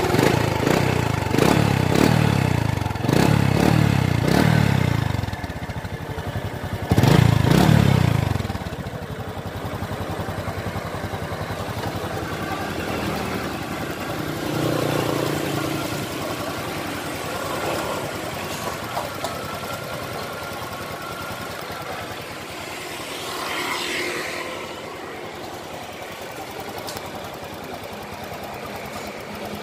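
A Honda Future X FI 125 cc single-cylinder fuel-injected motorcycle engine, heard near its exhaust, revved about four times. After about eight seconds it settles to a steady idle.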